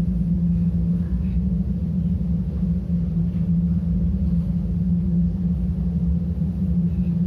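A steady, loud low drone with a deep rumble beneath it, unchanging throughout.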